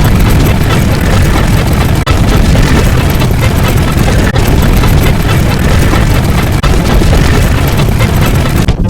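Loud, dense rumbling noise, heaviest in the low end, of the explosion or boom kind, with brief dropouts about every two seconds.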